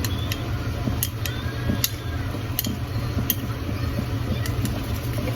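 Chopsticks tapping and scraping against a frying pan while an egg is broken up and stirred: scattered light clicks over a steady low hum.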